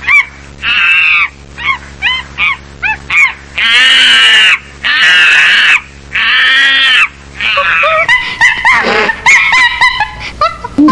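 Monkey calls: a run of short, high calls that bend in pitch, about two a second. These are followed by three long, loud, high screams of about a second each, then quick, broken chattering toward the end.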